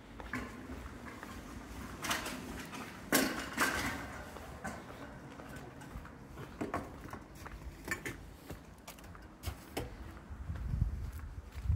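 Footsteps on a paved pavement: scattered, uneven steps over faint street hiss, with a low rumble building near the end.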